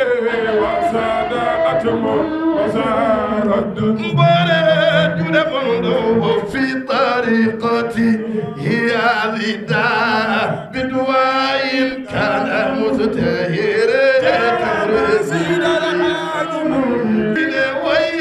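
Several men singing a religious chant unaccompanied into handheld microphones, their voices overlapping and amplified through a sound system.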